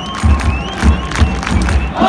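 Football supporters chanting together in the stands, a bass drum keeping a steady beat of about two to three strokes a second under the crowd noise.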